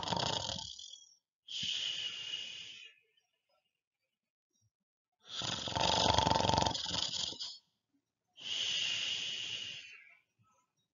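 A man doing a mock snore, as if he had dozed off: twice a loud snored breath in, once at the start and once about five seconds in, each followed by a hissing breath out.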